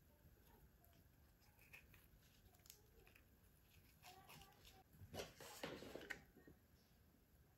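Quiet hand-crafting sounds: faint rustles and light taps of jute cord and a small cardboard form being handled. A few louder short knocks and rustles come about five to six seconds in, as a plastic hot glue gun is brought into use.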